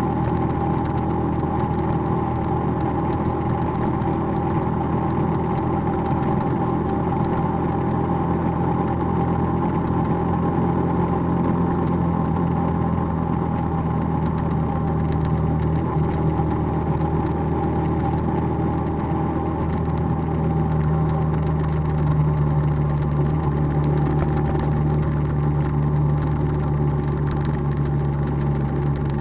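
Motorcycle engine running steadily at cruising speed, with wind and road rush, heard from the moving bike itself. The engine note strengthens slightly about two-thirds of the way through.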